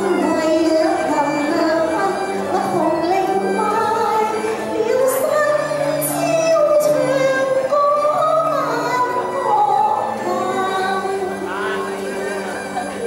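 A woman singing through a microphone, long held notes that bend and glide, over instrumental backing music.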